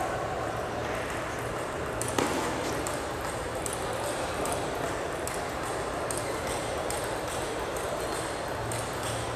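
Steady hall murmur with scattered light clicks of a table tennis ball, and one louder knock about two seconds in.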